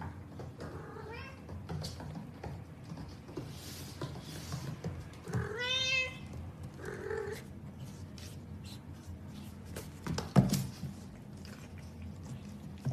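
Domestic cat meowing: one long meow that rises and falls in pitch about halfway through, then a shorter call. A sharp knock comes later and is the loudest sound.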